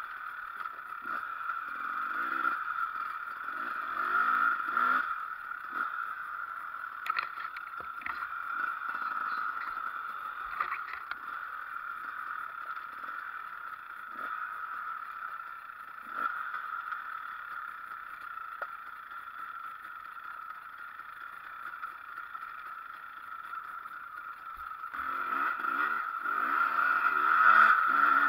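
Enduro motorcycle engine heard from a camera mounted on the moving bike, revving up and down along a rough trail, with a few sharp knocks from the bike over the ground. The revs climb hard near the end.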